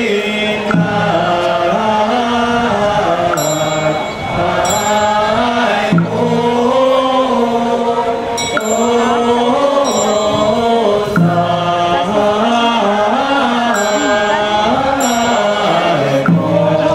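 Buddhist devotional chanting with musical accompaniment: a slow, melodic phrase over low held notes, repeating about every two and a half seconds.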